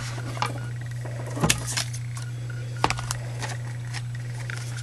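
Plastic cutting mats and a metal die being handled on a manual die-cutting machine: two sharp clacks about a second and a half apart, with a few lighter clicks, over a steady low hum.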